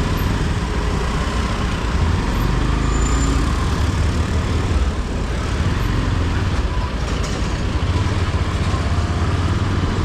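Steady road and traffic noise heard from a moving motorcycle: a continuous low rumble of engines and tyres among traffic.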